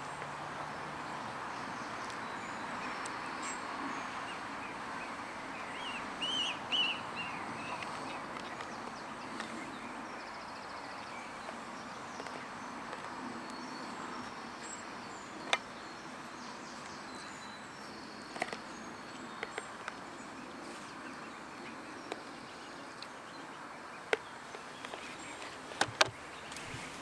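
Outdoor lakeside ambience: a steady background rush with a short run of bird calls about six seconds in, and a few sharp clicks later on.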